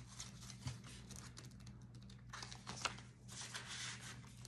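Paper banknotes being handled, with rustling and crinkling of clear plastic zip envelopes in a ring binder: a faint string of small ticks and rustles.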